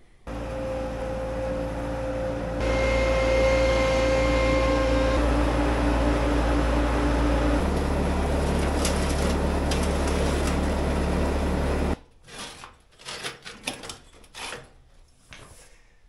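Skid steer's diesel engine running steadily nearby, its pitch and level shifting twice, then stopping abruptly about twelve seconds in. After that come a few scattered knocks and scuffs.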